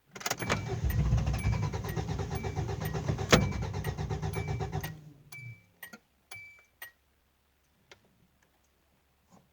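Subaru EA82 flat-four being cranked by its starter for about five seconds without catching, with one sharp crack about three seconds in. The cranking stops and a few clicks follow: the engine won't start.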